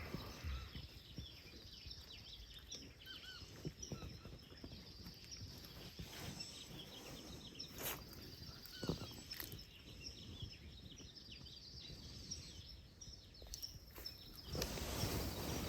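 Faint outdoor ambience with scattered short bird chirps and a few soft clicks. Near the end a louder steady noise comes in.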